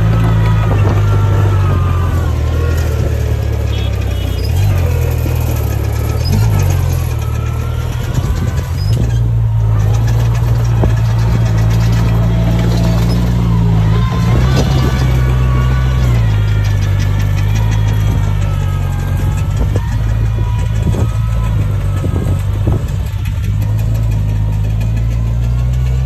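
Komatsu bulldozer's diesel engine running steadily under load while pushing soil, with clanks and wavering squeals over the engine note.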